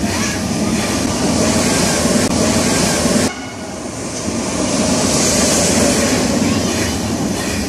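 Al Boraq high-speed train, an Alstom Euroduplex double-deck trainset, passing at speed: a loud, steady rush of wheel and air noise that drops suddenly about three seconds in and then builds again.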